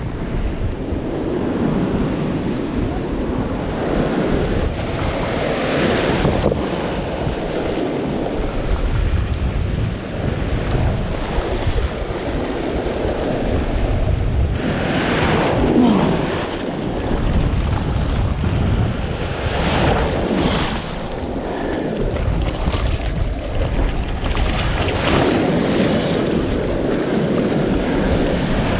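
Breaking surf and foaming whitewater rushing around a kayak as it is paddled out through the waves, with wind buffeting the microphone. Several louder surges come as waves break over the boat.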